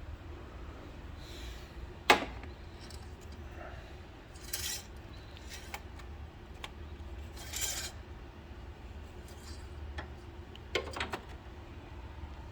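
Handling noise while topping up and checking engine oil: a sharp metallic click about two seconds in, two brief rubbing scrapes, and a few light clicks near the end, over a low steady hum.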